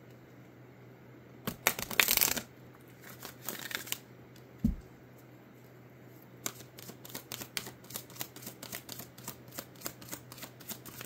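Oracle card deck being shuffled by hand: two louder bursts of cards rustling about two and four seconds in and a dull thump near the middle, then a quick run of soft card taps, about four a second, from an overhand shuffle through the second half.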